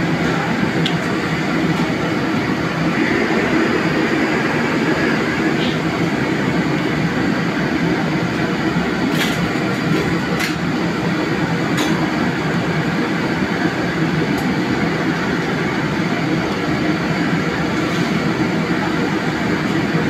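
Steady roar of a commercial kitchen's wok range and exhaust hood running. A few short utensil clicks come near the middle.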